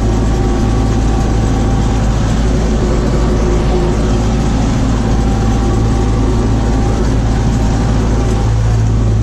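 Tractor engine running at a steady pitch, driving a rear-mounted vertical-shaft rotary stalk shredder through sunflower stalks.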